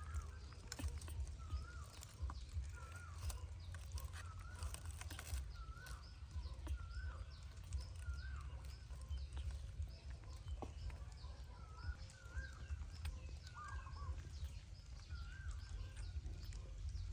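Baby monkey making short, wavering squeaky calls, roughly one a second with a pause of a few seconds in the middle, over a low steady rumble.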